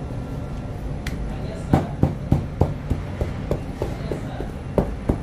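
A run of sharp knocks, about three a second for over three seconds, over a steady low rumble, typical of work in a bakery.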